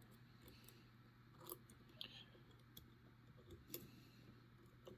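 Faint, scattered metallic clicks and taps of lever-lock picks and a steel 5-lever padlock being handled, a few light ticks a second or so apart.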